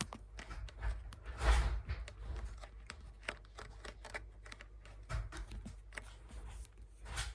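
Adhesive tape being pulled and torn off the roll and pressed down, crackling, with a longer rasping tear about one and a half seconds in and another near the end, over light handling knocks.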